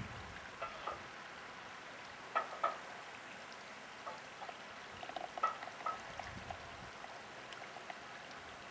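Ducks dabbling and feeding in a stream: short irregular splashes and bill-slaps at the water surface over a steady soft rush of flowing water, with a small cluster of splashes a little past the middle.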